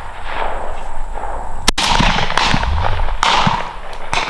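Several shotgun shots: one sharp, loud report about a second and a half in, and softer shots with echoing tails after it.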